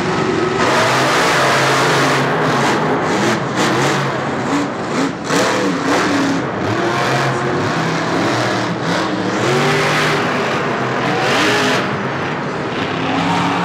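Monster truck engines revving hard as the trucks race. The pitch rises and falls with the throttle, with quick on-off throttle stabs a few seconds in.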